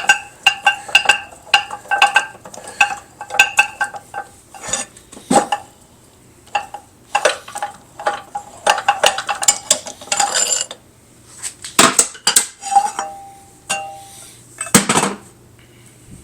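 Metal vise parts and tools clinking and knocking together as they are handled, some strikes leaving a short metallic ring. The first few seconds hold a quick run of ringing taps, about three a second; after that the knocks are scattered, with a hard knock near the end.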